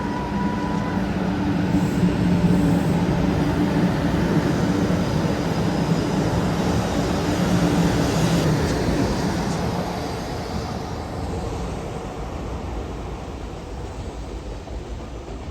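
Shinkansen bullet train running past, its rumble and rushing noise swelling and then slowly fading away, with a steady two-note hum through the first half.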